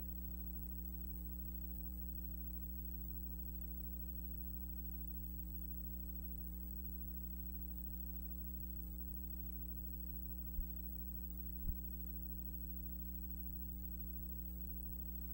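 Steady low electrical hum with a faint high whine over it, and two short clicks about a second apart near the eleven-second mark.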